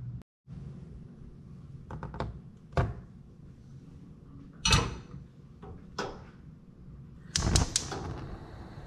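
Stainless steel pot being set down and shifted on a gas stove's metal grates: a few separate metallic knocks and clatters, then a quick run of three or four sharp clicks near the end.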